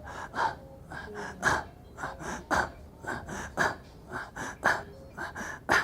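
Short, sharp breaths in a steady rhythm, about three a second.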